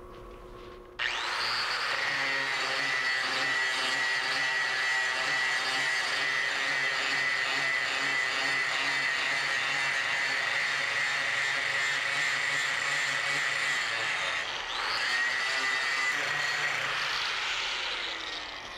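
Angle grinder with an abrasive disc grinding rust off a carbon steel plate: it starts suddenly about a second in, and a steady high whine runs over the grinding hiss. It eases off briefly once, comes back, and winds down with a falling tone at the end.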